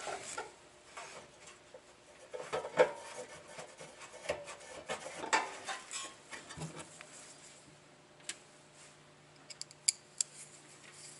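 Irregular metallic clinks and scrapes of a combination wrench turning a nut on the steel housing of a Suburban SF-30 RV furnace, with a quick run of small ticks near the end.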